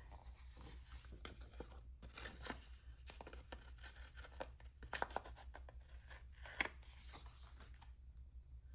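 Scissors cutting washi tape: a string of faint snips and small clicks.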